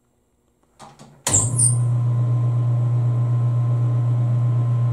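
Metal lathe switched on: about a second in, the motor starts abruptly and the spindle and chuck settle into a steady, even running hum.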